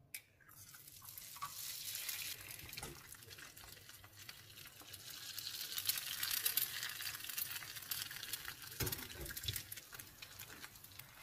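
An egg dropped into a hot non-stick frying pan sizzles and crackles in the fat, the frying building up over the first few seconds and then easing off. A short click comes at the very start and a low knock about nine seconds in.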